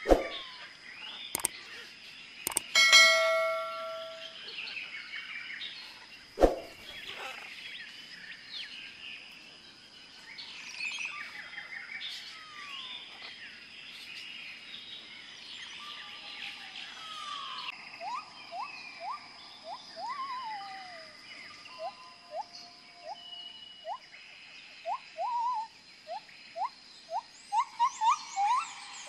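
Wild birds chirping and calling in the trees. In the last ten seconds short rising whistled notes come in quick series, over a steady high hum. A few sharp knocks in the first seven seconds and a brief ringing ding about three seconds in are the loudest sounds.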